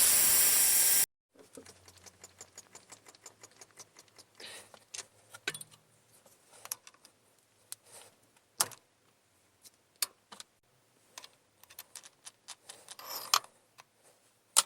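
Steady mechanical noise from the milling setup stops abruptly about a second in. It is followed by a long series of small irregular metallic clicks and clinks, with a few sharper knocks, as small steel parts are handled at the vise and dividing head.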